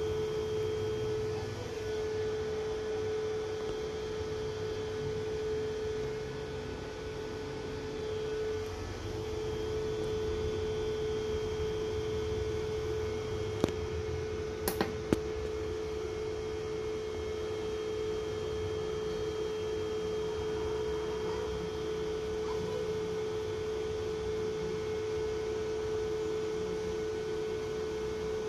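Steady electrical hum from solar power electronics, a single unchanging tone with fainter higher whines above it. A few sharp clicks come about halfway through.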